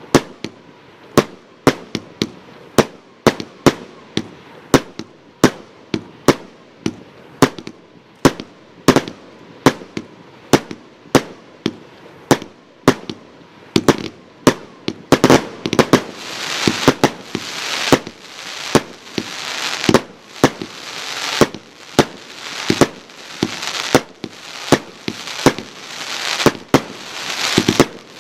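Royal Fireworks Ano's Heaven Four fireworks cake firing shot after shot, a sharp bang about every two-thirds of a second. From about halfway, a dense high hiss fills the gaps between the bangs.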